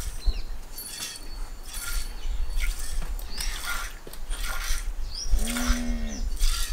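A cow being milked by hand into a steel bowl: short hissing squirts of milk striking the metal, about one a second. Near the end there is one short pitched call from the calf.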